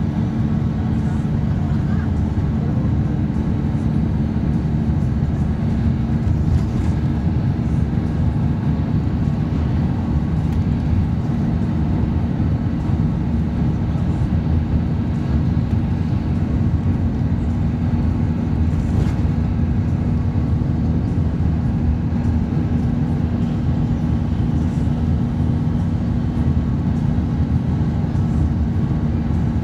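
Steady cabin noise of a coach bus cruising on an expressway: a continuous low engine drone and tyre rumble with a constant low hum, unchanging throughout.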